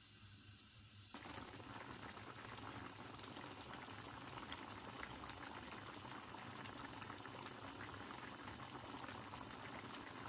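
Fish broth with tomatoes and greens bubbling at a steady boil in an uncovered stainless steel pan. The bubbling comes in suddenly about a second in and stays even after that.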